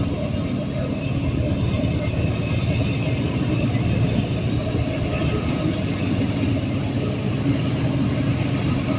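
Union Pacific diesel freight train rumbling steadily.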